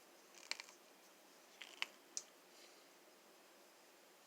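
A few faint clicks and scrapes as a twist-on plastic wire nut is screwed onto the ends of spliced copper wires.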